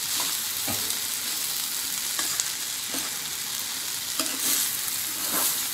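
Metal spatula stirring poha (flattened rice with capsicum and tomato) in a non-stick kadai, scraping the pan in several short strokes over a steady light sizzle of the frying mixture.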